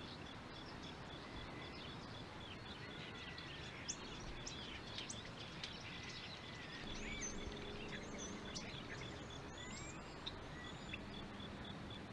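Faint outdoor wildlife ambience: a low hiss with scattered short bird chirps and whistles, and a steady, evenly pulsing high note behind them.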